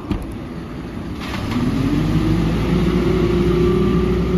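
A short knock, then a ready-mix concrete truck's diesel engine revs up about a second in and holds a steady high speed to spin the mixer drum, remixing the load before the slump test.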